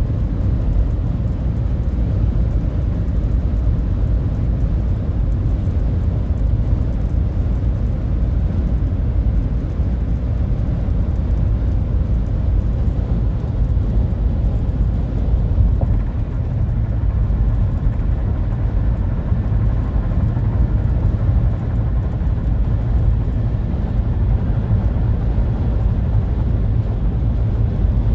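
Steady low road rumble inside the cabin of a 2023 Nissan Rogue SL on the move, on a drive meant to bring out a rattle from its dashboard.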